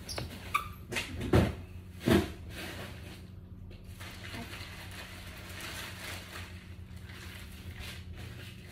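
Handling noise: a few knocks and rustles in the first two seconds or so, the loudest two about a second apart, then a steady faint low hum.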